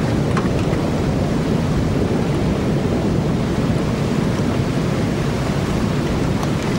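Thunderstorm noise: a steady low rushing of rain and wind.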